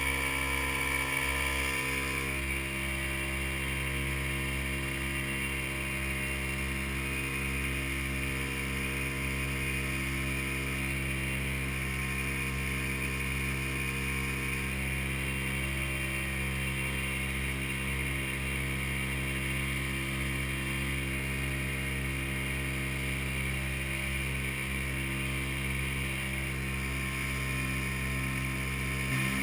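Motorboat engine running at a steady speed, an unchanging hum with the wash of water and wind over it.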